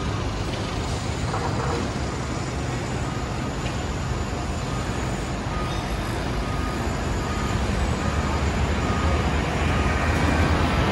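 Busy city street traffic: a steady rumble of engines and tyres that swells near the end as a vehicle passes close. From about halfway in, a faint short beep repeats about twice a second.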